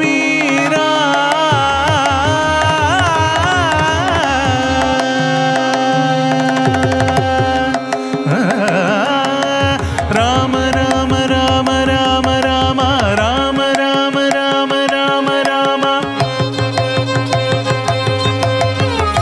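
Carnatic-style devotional ensemble music: ornamented, sliding melody lines over a steady held drone, with mridangam strokes keeping time and dropping out for short stretches. The melody comes from the singer's voice and violin, with harmonium.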